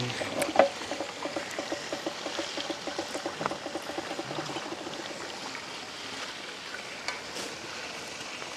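Liquid gurgling: a fast run of small bubbling pops for about the first five seconds, thinning out into a steady hiss.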